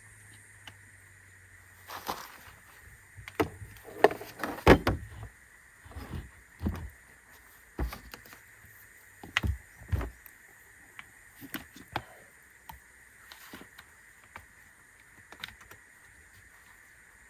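Irregular clicks, taps and metallic knocks as cables and clamps are worked onto a salvaged Renault 4L starter motor hooked to a portable battery pack. They are loudest in a cluster about four to five seconds in. No sustained motor spin is heard, and the starter is judged seized.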